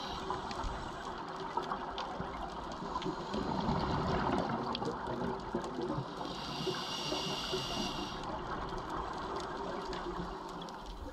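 Underwater ambient sound on a scuba dive: a steady rushing hiss with scattered faint clicks, swelling about three to five seconds in, and a thin high hiss for about two seconds past the middle.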